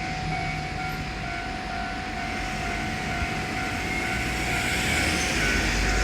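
Japanese railroad crossing warning bell ringing its repeated electronic "kan-kan". A Keihan electric train's rumble grows louder near the end as it approaches.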